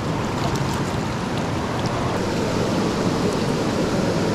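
Fast, shallow stream current rushing steadily in the tailwater below a waterfall.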